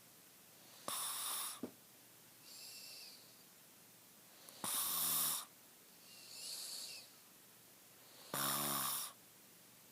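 A sleeping person snoring. There are three loud rasping snores about every three and a half seconds, with softer breaths between them.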